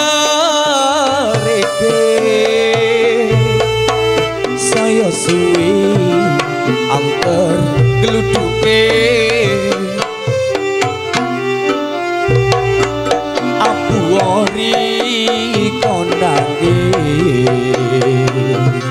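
Campursari band music over a sound system: Javanese kendang hand drums keep a steady beat under a keyboard melody of held, stepping notes.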